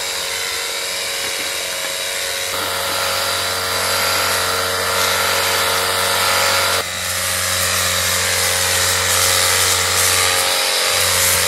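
Handheld battery-powered sprayer gun running, its electric pump motor humming steadily under the hiss of the spray mist. The sound shifts abruptly about two and a half seconds in and again near seven seconds, then cuts off suddenly at the end.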